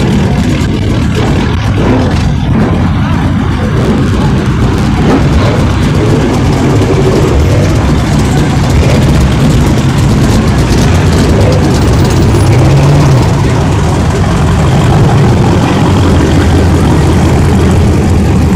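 Car engine idling with a steady low rumble, briefly revving up about twelve seconds in.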